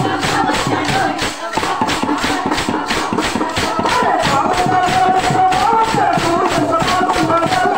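Chekka bhajana music: a fast, even beat of hand-held wooden clappers (chekkalu) with a melody line over it, including a long held note in the middle.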